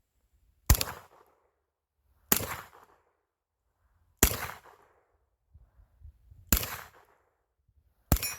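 Five single shots from a 9mm Kel-Tec Sub-2000 carbine, fired slowly at about one every two seconds, each crack followed by a short echo.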